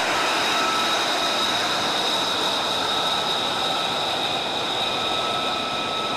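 F-35 fighter's turbofan engine running as the jet taxis: a steady rushing hiss with a high, steady whine on top.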